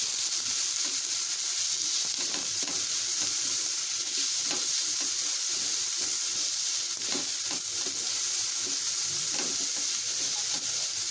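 Chopped onions sizzling as they fry in a pan, with a spatula stirring them and scraping the pan in irregular strokes.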